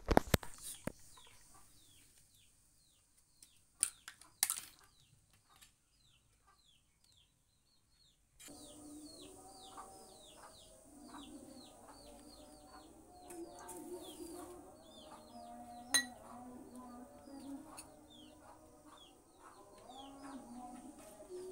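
Chicks peeping over and over, each peep a short high note sliding downward, several a second. A few sharp glass clinks come near the start, and after about eight seconds a fainter, lower, wavering sound joins in underneath.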